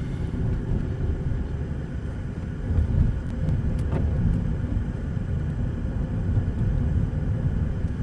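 A car driving slowly along a street, heard from inside the cabin: a steady low engine and tyre rumble, with a couple of faint clicks about four seconds in.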